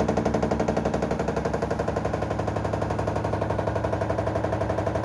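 Washing machine in its spin-dry cycle making a very loud, abnormal rapid rattling drone, many even beats a second, likened to an airplane about to land. The cause of the fault is not yet known.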